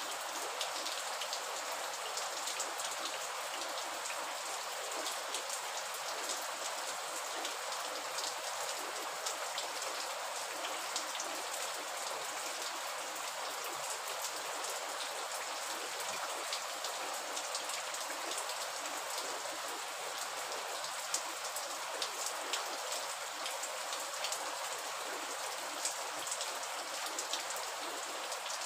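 Steady rain falling, a dense hiss of rain with many small, sharp drop ticks scattered through it.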